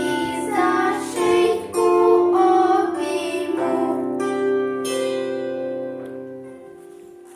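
Two girls singing a song with musical accompaniment, ending on long held notes as the music fades out.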